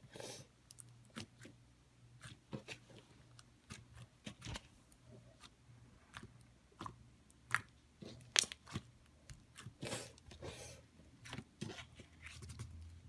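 Slime being squeezed and poked by hand, making irregular sticky clicks and small crackling pops, a couple of them sharper a little past halfway.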